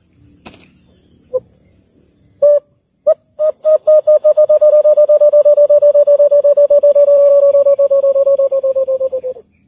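A person imitating the call of the white-eared brown dove (alimokon) by blowing through cupped hands, luring the bird to a trap. A few single hoots are followed by a long, rapid run of hoots at one pitch that sags slightly and fades near the end.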